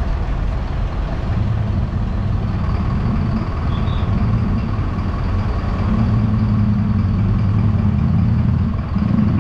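Truck engine running steadily close by: a low rumble with a faint steady whine above it, from a tow truck that is taking motorbikes away.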